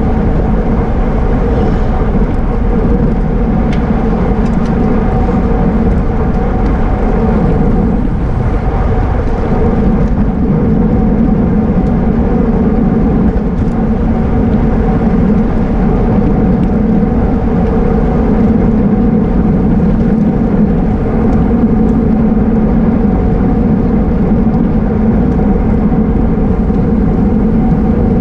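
Wind and road noise on a bicycle-mounted camera while riding a road bike at race speed: a loud, steady rush with a constant hum under it.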